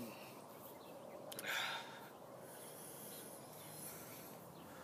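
A person's breath: one short, noisy rush of air about a second and a half in, then faint breath hiss over quiet room noise.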